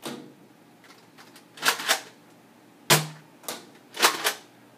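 Nerf Rough Cut 2x4 pump-action dart blaster being pumped and fired: a run of about seven sharp plastic clacks and pops, several in quick pairs, the strongest near the middle.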